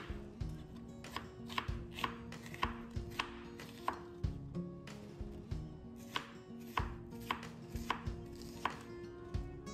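Chef's knife slicing an onion on a wooden cutting board: a steady run of sharp knocks of the blade on the wood, about two a second.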